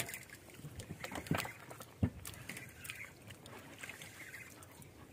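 Small waves lapping against the hull of a wooden outrigger fishing boat, with scattered sharp knocks and clicks, the loudest right at the start and about two seconds in.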